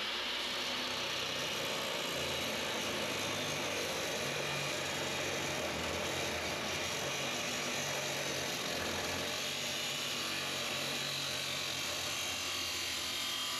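Bauer abrasive chop saw running at full speed, cutting through a steel control-arm tube: a steady, even grinding with a faint high whine.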